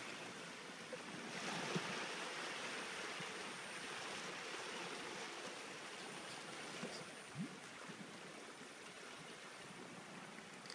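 Steady rushing background noise of water and air at the shore, a little louder from about a second and a half in, with a couple of faint knocks.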